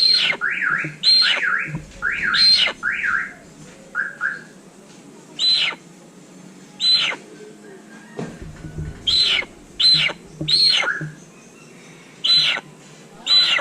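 A hornbill calling: a series of sharp, high squawks, each dropping steeply in pitch. They come in a quick warbling run for the first few seconds, then singly every second or two.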